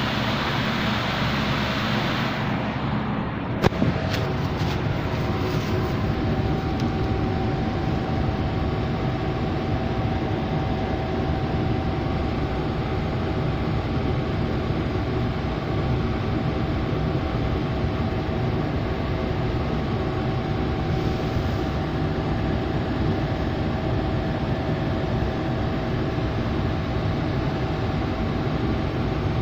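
Air conditioner running with a steady rush of fan air. A sharp click comes a few seconds in, after which a steady hum tone joins and holds.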